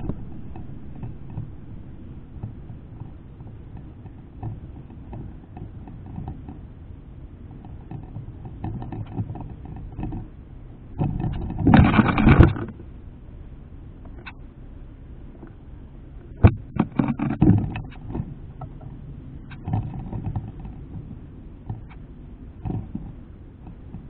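Birds feeding at a steel seed dish, picked up very close: scattered taps and scratches of bills and feet on the seeds and the metal, over a steady low rumble. A loud flurry, most likely wings as a bird lands or takes off, comes about halfway through, and a few sharp taps follow some seconds later.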